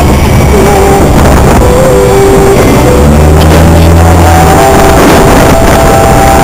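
ATV/UTV engine running under way on a dirt trail, loud and overdriven on the microphone, with a tune of held notes stepping from pitch to pitch playing along with it.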